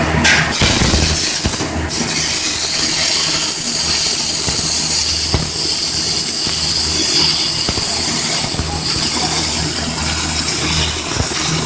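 Stick-welding arc hissing and crackling steadily while a bead is laid, after a short break about two seconds in.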